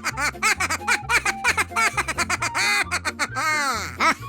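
Playful cartoon music for Painty's character, with a bouncing, stepping bass line under a stream of rapid high, squeaky swooping notes that sound like giggling.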